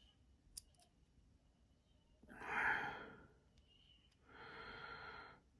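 A person sighs in frustration about two seconds in, then breathes out again more softly a second later. A faint single click comes just before.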